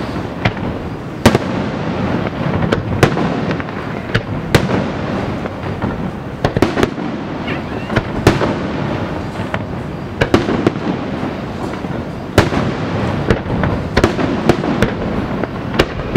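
Fireworks display: shells bursting in a rapid, irregular string of sharp bangs, several a second at times, over a continuous din of crackling and rumble.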